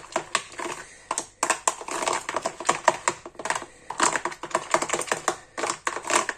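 A metal spoon stirring a thick sour-cream dip in a plastic bowl, making quick, irregular clicks and short scrapes against the bowl.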